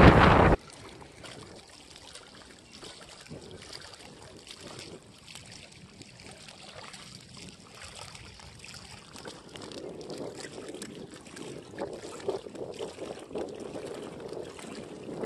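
Wind buffeting the microphone, cutting off suddenly about half a second in; then faint lapping of lake water at the shore with light ticks, a little louder in the second half.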